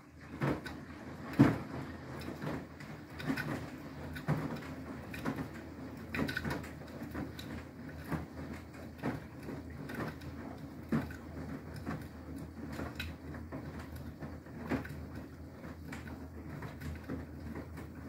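Beko WTK104121W front-loading washing machine in its wash tumble: the drum turns with a steady low motor hum while the wet laundry splashes and thuds against it, with irregular knocks about once a second and a sharper one about a second and a half in.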